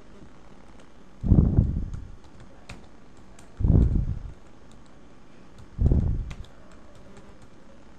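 Typing on a computer keyboard: scattered light key clicks, with three louder low, muffled bursts about two seconds apart.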